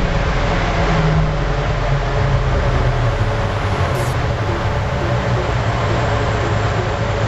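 Mazda RX-7 FD's rotary engine running at a steady speed on a chassis dyno, its pitch rising slightly about a second in.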